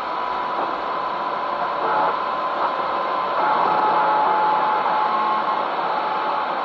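CB radio receiver putting out band static between skip transmissions, a steady hiss with a thin whistle tone through it that drops slightly in pitch about halfway.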